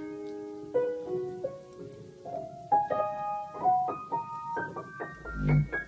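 Piano playing a melody of single notes, one after another, climbing gradually higher, with a short low thump near the end.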